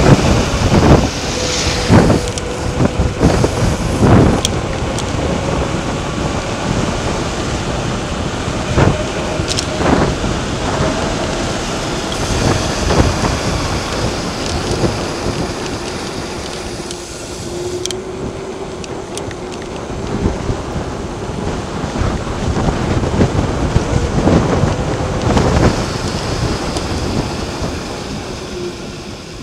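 Heavy wind buffeting on the microphone during a fast mountain-bike descent on asphalt, with steady tyre rumble and frequent sharp knocks from bumps in the road.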